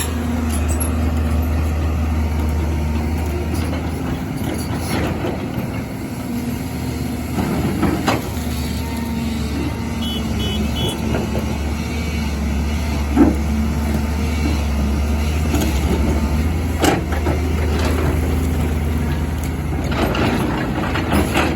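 Excavator's diesel engine running steadily with a low rumble, with a few sharp knocks or clanks about eight, thirteen and seventeen seconds in.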